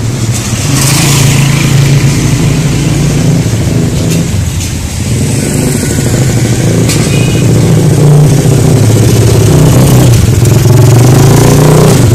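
Small engine of a kids' mini dirt bike running. It grows louder about a second in, dips briefly around the fourth to fifth second, then grows louder again from about eight seconds, with the pitch rising and falling near the end as the bike is ridden.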